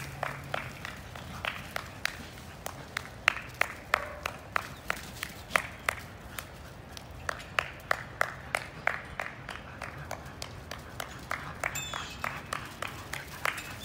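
Footsteps and running dog paws crunching on wood-chip mulch: a string of sharp, irregular crunches, about two a second at their busiest.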